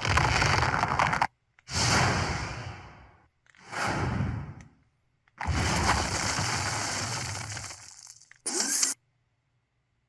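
A run of built-in mobile phone sound effects: five noisy, hiss-like bursts in a row, each starting suddenly and fading, the fourth the longest and the last a short blip about three-quarters of a second before the end.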